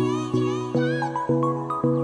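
Background music with a steady beat: repeated chord notes, about three a second, with wavering high tones above them.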